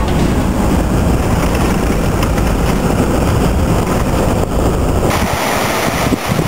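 Toyota Troopy 4WD driving on a dirt road, heard from inside the cab as a steady low rumble of road and wind noise. About five seconds in it cuts to the even rush of a waterfall.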